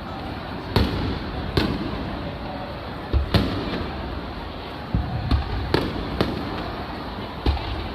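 Aerial fireworks shells bursting: about eight sharp booms at uneven intervals, a few coming in quick pairs, over a steady background din.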